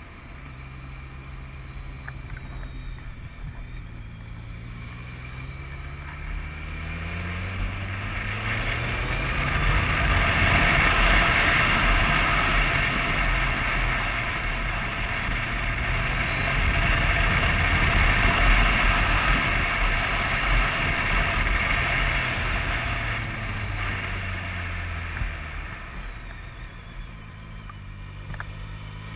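BMW motorcycle engine and wind rush heard from the rider's helmet camera while riding mountain hairpins. The engine note rises as the bike accelerates out of a bend, wind noise swells to its loudest in the middle, then the engine note falls as the bike slows for the next hairpin and starts to rise again near the end.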